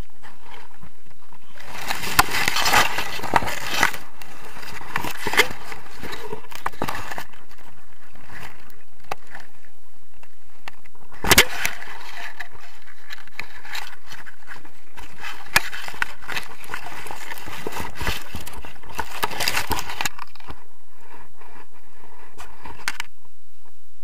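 Tall weed stalks and leaves rustling, scraping and snapping against the camera and harness, in several bursts of crackling with a sharp knock about halfway through.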